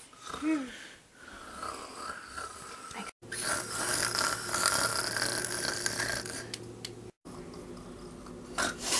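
A person snoring with a rasping, drawn-out sound. The sound is cut by two brief dropouts to silence, about three and seven seconds in.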